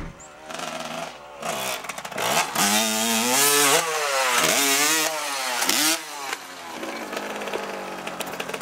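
Dirt bike engine revving hard, its pitch climbing and falling with the throttle, loudest in the middle and dipping sharply twice as the throttle is chopped and opened again. It then drops back to a lower, steadier running sound near the end.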